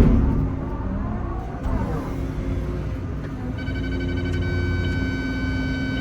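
Excavator's diesel engine running under load while digging, with a sharp knock right at the start. About three and a half seconds in, a steady high electronic tone comes in and holds.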